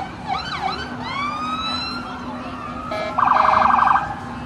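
Electronic emergency siren on blue-lit patrol boats: a few quick up-and-down yelps, then a long rising whoop, then about three seconds in a loud, rapidly pulsing blast lasting under a second.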